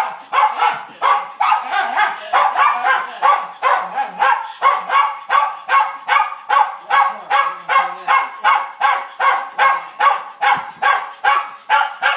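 Schnauzer barking over and over at an even pace of about three barks a second, without a break.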